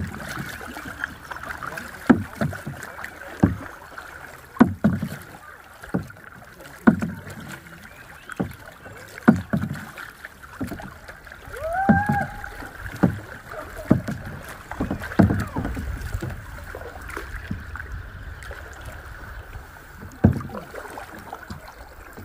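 Canoe paddles dipping and pulling through the water, a stroke about every second or so.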